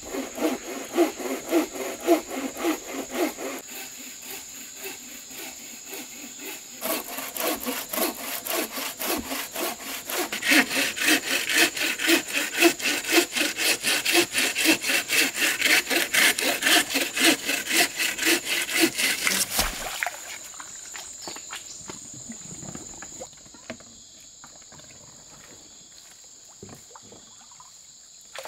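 Hand saw cutting through a wooden log in steady back-and-forth strokes. It pauses for a few seconds early on and stops about two-thirds of the way through. A steady high-pitched insect drone runs beneath.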